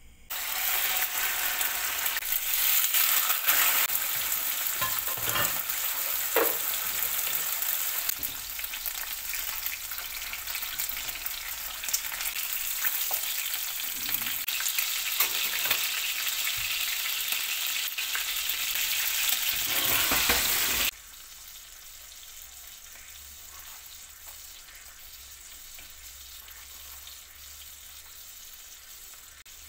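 Pork steaks rolled around spinach frying in hot oil in a nonstick pan: a loud, steady sizzle with scattered crackles and pops. About two-thirds of the way through it drops abruptly to a much fainter hiss.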